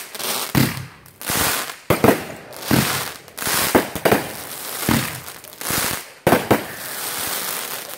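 Consumer aerial fireworks bursting overhead: a series of sharp bangs, roughly one a second, each followed by a hissing crackle from the crackling stars. Near the end the bangs give way to a steadier crackle.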